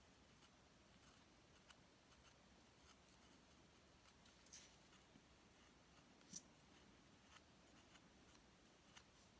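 Very faint scraping of an X-Acto knife paring soft, half-cured Magic Sculpt epoxy putty filler on a wood carving, with a few small clicks of the blade, the clearest about six seconds in. At this stage the putty cuts easily.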